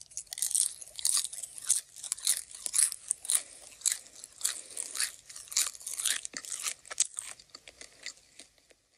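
Someone munching popcorn: a fast, irregular run of crunches that thins out and stops about eight seconds in.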